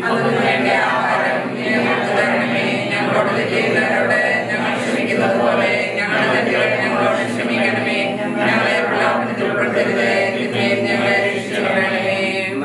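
A choir singing without instruments, several voices holding notes together.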